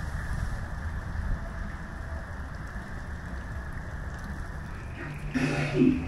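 Steady hiss of running and splashing water, like rain, with a brief louder pitched sound near the end.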